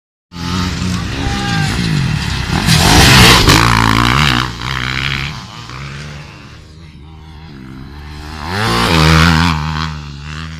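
Off-road racing motorcycles revving hard as they pass close by on a dirt track: one loud pass about three seconds in, then a quieter stretch, then a second rider revving past near the end.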